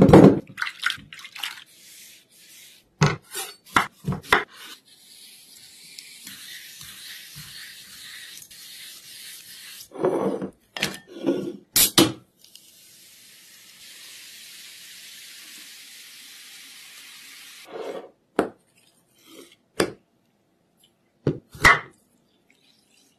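A run of kitchen sounds with no talk. A cucumber splashes into a glass bowl of water, followed by scattered knocks and taps and a steady hiss. About twelve seconds in, a Sprite can's ring-pull cracks open with a sharp pop, then fizzing hiss for several seconds, and a few taps as a lime is squeezed near the end.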